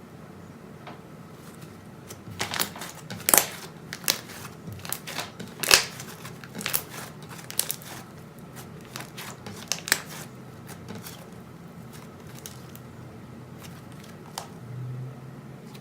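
Slime being squeezed and pressed by hand, giving off irregular sharp clicks and pops, most of them between about two and ten seconds in, then quieter.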